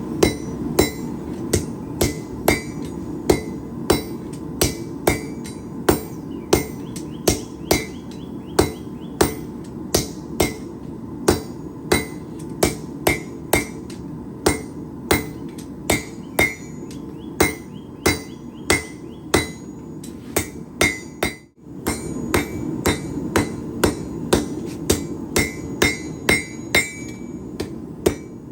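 Hand hammer striking steel on an anvil in forging, with regular ringing blows about one and a half a second over a steady background noise. The blows break off briefly about two-thirds through and then pick up again at the same pace.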